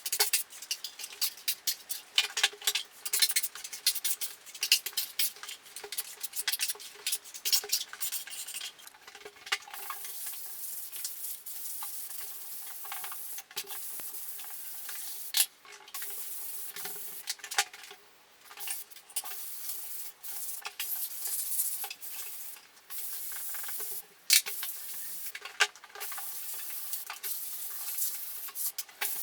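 A putty knife scraping wall filler in quick, repeated strokes, then, from about nine seconds in, the steady hiss of sandpaper rubbing over dried filler on a wall, broken by short pauses.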